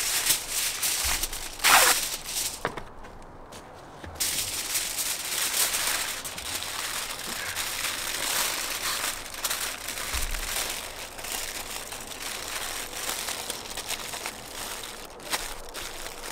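Aluminium foil being handled: torn off its roll in the first couple of seconds, with one loud sharp rip, then a long stretch of crinkling and crumpling as the sheet is folded and pressed into a packet.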